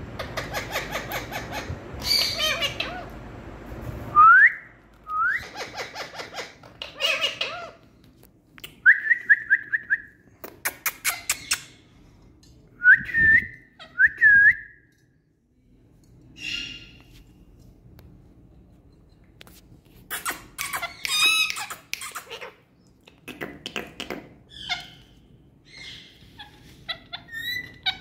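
Indian ringneck parakeets calling: sharp rising whistles and runs of short repeated whistle notes, mixed with harsh squawking chatter.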